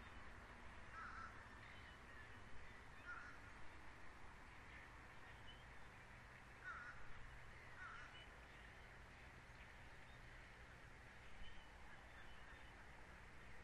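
Faint, short bird calls, single caw-like notes a few seconds apart, over a steady low hum and hiss.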